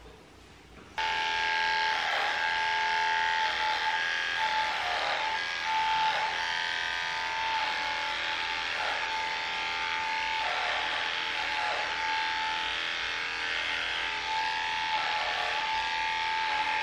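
Electric dog clippers switching on about a second in and running with a steady whine. The pitch sags briefly again and again as the blade is pushed into the dog's fur.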